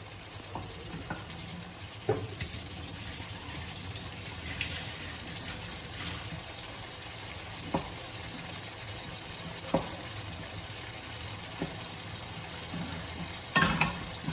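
Chicken pieces with onion and garlic sizzling in a hot pan as they start to cook, with a steady sizzle and scattered sharp pops and spatters; the loudest cluster of pops comes near the end.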